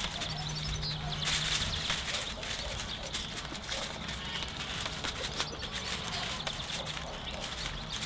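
Aluminium foil crinkling and rustling as it is pressed and crimped around the rim of a tray, in irregular crackles, with a brief low hum near the start.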